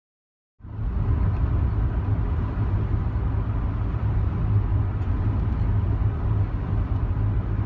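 Steady, loud car rumble, as of a vehicle running or being driven, starting abruptly about half a second in.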